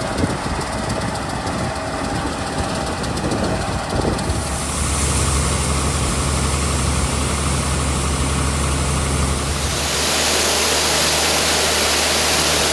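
Heavy farm machinery engine running steadily. The sound changes twice, as if between shots: a deeper, steady hum sets in about four seconds in, and from about ten seconds in it turns louder, with a strong hiss over the engine note.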